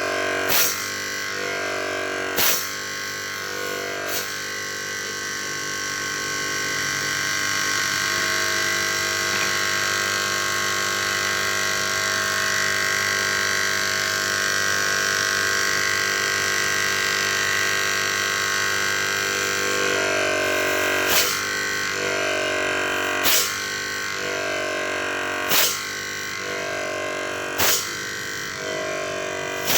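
Small electric motor, most likely a compressor, running with a steady multi-tone hum. A sharp click comes about every two seconds near the start and again in the last ten seconds.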